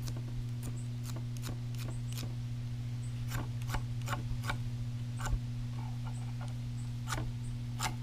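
A ferrocerium fire-starter rod scraped with its striker again and again, short sharp rasps at uneven intervals, some in quick pairs, throwing sparks onto dryer lint to light it. A steady low hum runs underneath.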